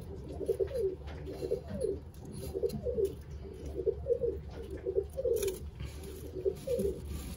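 Racing pigeon cooing: a low, warbling coo repeated over and over in short phrases.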